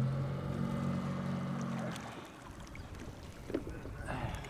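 Boat motor idling with a steady low hum that cuts off about two seconds in. A single sharp click follows about a second and a half later.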